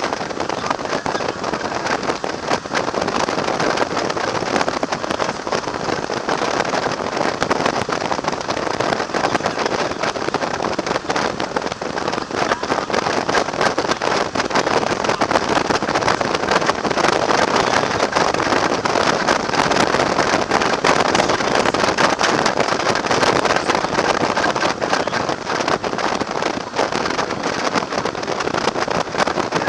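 Steady wind rush and road noise from a motorcycle riding at highway speed, with wind buffeting the microphone of a camera mounted behind the windscreen.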